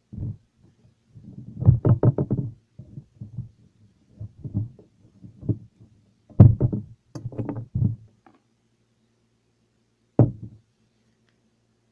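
A cardboard phone box being handled and cut open by hand: clusters of knocks, taps and scraping as the seal is cut, then a single knock about ten seconds in.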